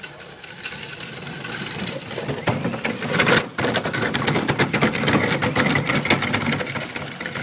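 HPI Crawler King RC crawler's 35-turn brushed electric motor and gears whining as it drives, towing a small cart, over dense crunching of gravel. The crunching grows louder about two seconds in, and the whine is steadiest after a brief dip near the middle.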